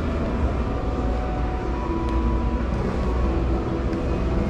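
Steady low rumble and hum of the ambience in a large exhibition hall, with no distinct event standing out.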